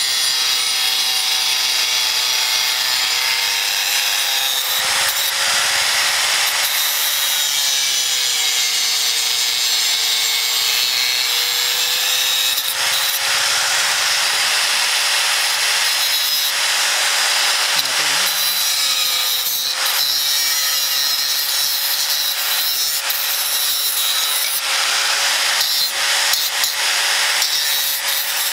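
Angle grinder with a thin cut-off disc running steadily while cutting through rusty steel plate from an old disc plough: a hissing grind over the motor's whine, whose pitch sags slightly a few times as the disc bites.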